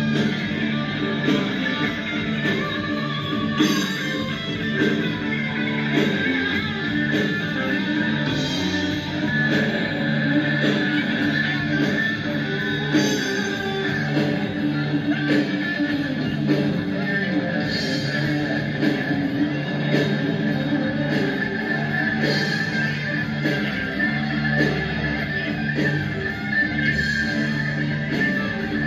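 Guitar-led rock music playing continuously.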